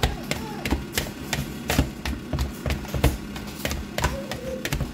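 Irregular kitchen knocking and tapping, two or three sharp knocks a second, over a low steady hum.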